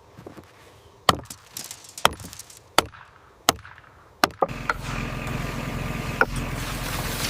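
An axe chopping wood: five sharp strikes, roughly one every 0.7 seconds. About four and a half seconds in, a steady engine-like drone starts and keeps running.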